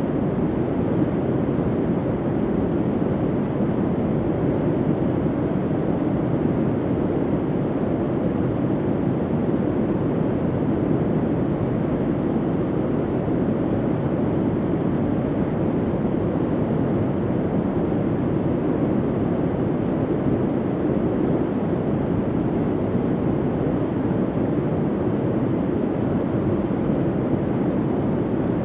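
Ambient bunker hum: a steady, even low rumble with no distinct tone and no changes.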